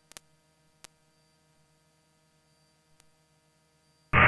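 Aircraft headset intercom audio: near silence with a faint steady electrical hum and two faint clicks, then a loud burst of hiss that switches on abruptly about four seconds in, as the radio or intercom opens.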